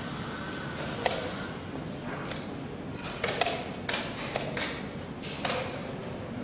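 Wooden chess pieces set down hard on a wooden board and chess clock buttons slapped in quick blitz play: a string of sharp clicks and knocks at uneven intervals, the sharpest about a second in and several close together in the middle.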